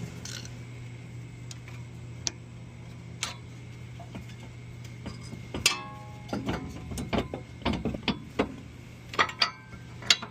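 Scattered metallic clicks, knocks and clanks as the rear brake caliper and pads are worked loose by hand. One clink about five and a half seconds in rings briefly, and the knocks come thicker after it. A steady low hum runs underneath.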